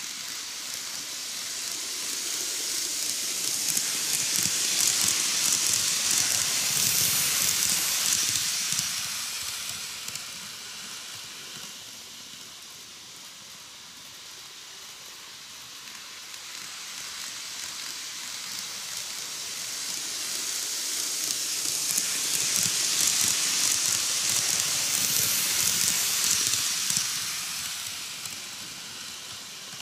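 N-gauge KATO 185 series 200 model train running round the track: a steady hiss of wheels on rails and motor that swells twice as the train comes close and fades as it goes away round the loop.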